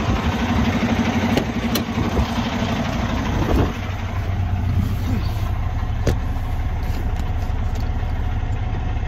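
Semi truck's diesel engine idling steadily, with a few sharp clicks. A higher hum over the idle drops away about three and a half seconds in.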